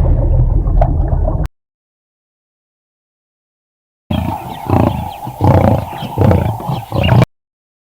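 A large animal roaring, with four or five loud, throaty calls in a row that cut off abruptly. Before them, a different pitched animal call breaks off sharply, followed by a couple of seconds of dead silence.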